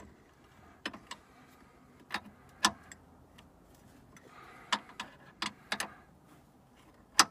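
Irregular sharp metallic clicks and taps of a wrench and bolt hardware being worked on a sway bar link, about a dozen ticks in no steady rhythm, the loudest near the end.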